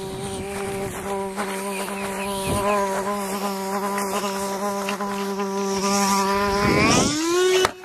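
A fly's wings buzzing in a loud, steady hum. Near the end the pitch dips and then sweeps upward.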